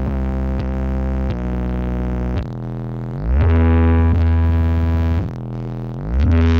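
Heavy, bass-laden synthesizer tones blasted through a large carnival sound system: long held notes with the pitch sliding down and back up between them, around two and a half seconds in and again near the end.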